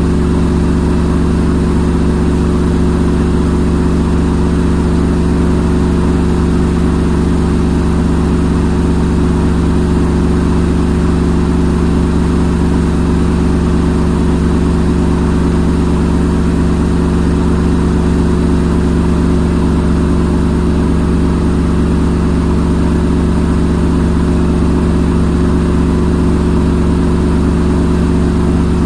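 Front-load washing machine in its spin cycle, the drum spinning at a steady speed with an even motor hum and whir.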